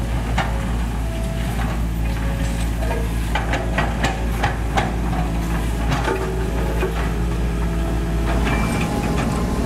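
Heavy construction machinery running steadily, with a drone of diesel engines. A cluster of sharp knocks and clanks comes in the middle.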